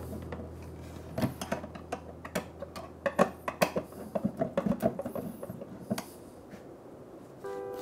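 Irregular sharp clicks and light knocks of hand work on cabinet hardware: metal hinges, screws and tools being handled and set down. A low steady hum runs underneath.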